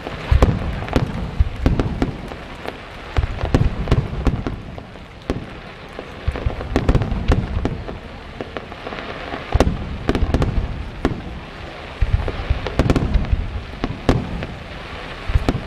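Fireworks display: clusters of loud bangs from bursting shells every second or two, with dense crackling between them.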